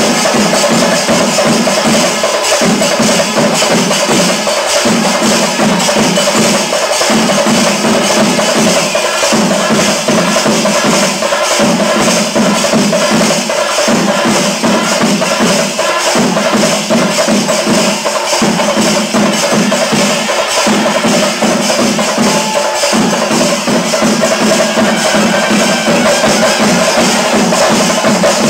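Loud percussion-led music with a steady, repeating beat that runs on without a break.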